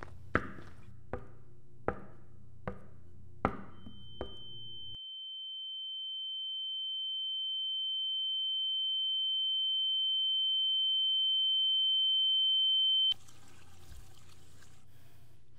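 Footsteps on a hard floor, about one step every three-quarters of a second, over a low hum. Then a single high, steady electronic tone begins, swells louder for about nine seconds and cuts off suddenly, leaving only a low hum.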